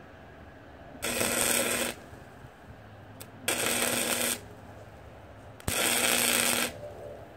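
Wire-feed (MIG) welder striking three short tack welds on steel angle iron, each a crackling, buzzing burst of about a second, spaced about two seconds apart.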